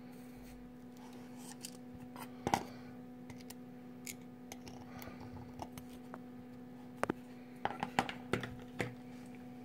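Small sharp clicks and taps of metal tweezers picking up and positioning a chip on a circuit board: a few scattered taps, then a cluster of them near the end. A steady low hum runs underneath.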